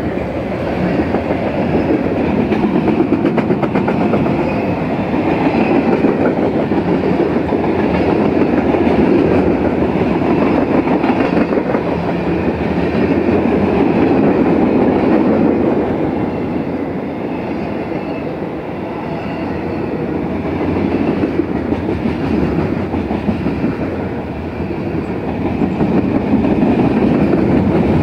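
Freight train cars passing close by: a loud, steady rumble of steel wheels on rail with rhythmic clickety-clack as the wheels cross rail joints. The level dips slightly twice, about two-thirds of the way through and again near the end, then rises.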